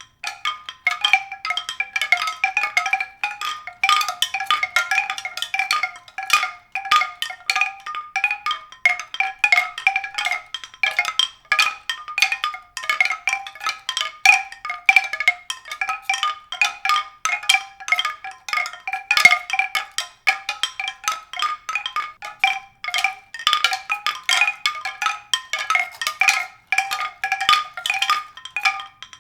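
Tuned percussion: many short, bright struck notes in a quick, irregular stream on a small set of pitches, ringing briefly.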